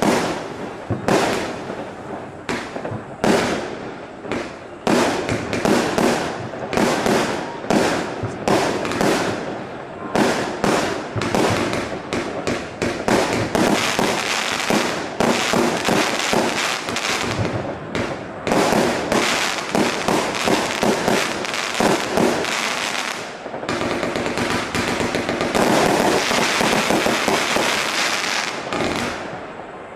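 A 200-shot compound firework cake firing shells in quick succession, about two or three bangs a second, silver-tailed shells launching and bursting into brocade crowns. The shots get denser and run together into a continuous din in the last few seconds before easing off.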